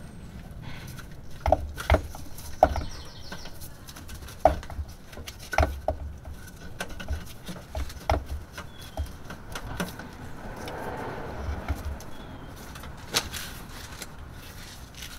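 Irregular knocks and clicks of metal and plastic as the stock battery and its wiring are wiggled and worked loose inside the electric mini bike's metal battery compartment, with a soft rustle partway through.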